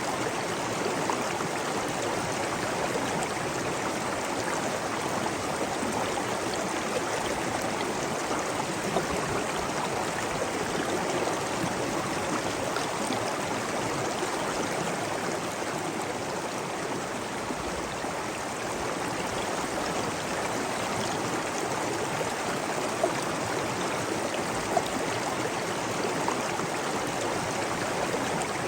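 Steady rush of flowing water, like a stream or cascade, with a few brief splashes standing out now and then.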